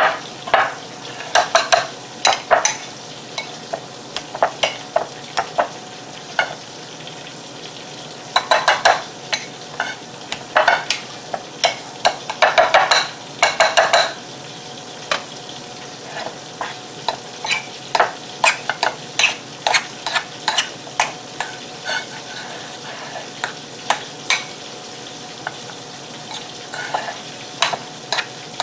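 A metal fork and then a wire potato masher scraping and clacking against a bowl in irregular bursts of strokes, mashing baked potato filling, busiest in the middle. Behind it runs a steady sizzle of chicken wings frying in oil.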